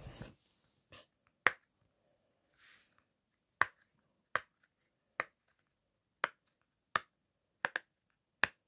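Silicone push-pop fidget toy (a 'pop it') having its bubbles pressed in one at a time, giving about ten sharp, separate pops spaced roughly a second apart. A brief low rumble of handling comes right at the start.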